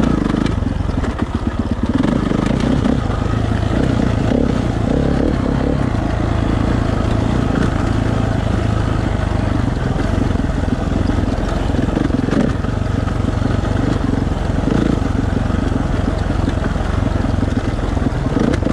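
Dirt bike engine running at fairly steady revs as the bike rides over a rocky trail.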